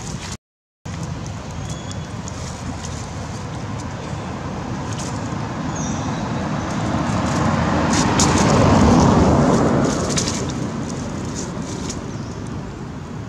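A motor vehicle passing on a nearby road over steady outdoor background noise, growing louder to a peak a little past the middle and then fading away. The sound drops out completely for about half a second just after the start.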